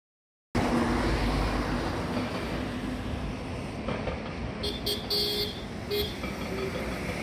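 A steady outdoor rushing noise, with a vehicle horn giving a run of short toots a little past the middle.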